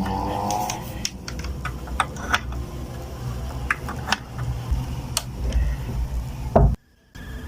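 Deep bass from an active subwoofer driven by a small mixer playing a bass test track, with scattered sharp clicks over it. The sound cuts out completely for a moment near the end.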